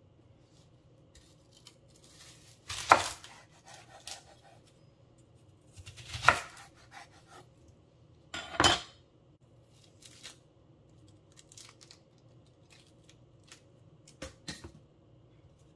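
A Wüsthof knife cutting through a large white onion on a wooden cutting board: three loud cuts, about three, six and nearly nine seconds in, each crunching through the onion and knocking the board. Softer clicks and crackles sound between them.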